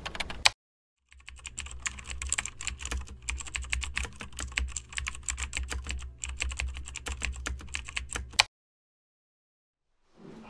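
Typing sound effect: a brief run of key clicks, then a long run of rapid, uneven key clicks over a low hum that stops on one louder clack about eight and a half seconds in.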